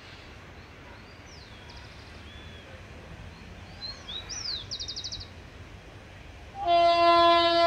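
Birds chirping, with a quick rapid trill about five seconds in, over a steady low background rumble. Near the end the General Motors GT-22 diesel locomotive's horn starts: one loud, steady note of an approaching train.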